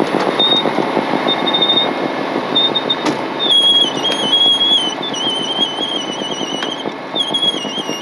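Heavy wrecker's engine and hydraulics running hard under load as it drags a snow-buried pickup out by a tow strap. A high whine wavers and steps in pitch from about halfway on, and there is one sharp click a little after three seconds in.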